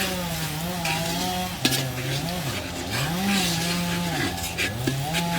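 Chainsaw engine working, its pitch rising and falling again and again as the throttle is squeezed and eased, with sharp crackling ticks over it.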